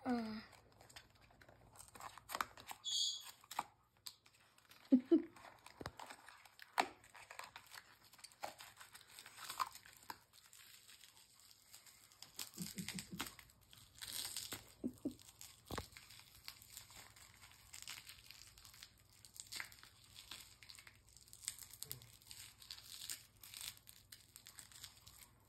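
Small toy box and its packaging being picked and torn open by hand: scattered crinkling, tearing and handling rustles, with sharp clicks here and there.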